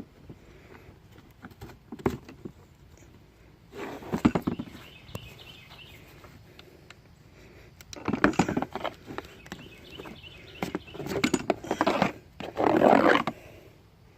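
Handling noise while screws and a bottom bar are taken off a seat frame: several short bursts of scraping and rattling, about 4, 8, 11 and 13 seconds in, with lighter clicks and knocks between.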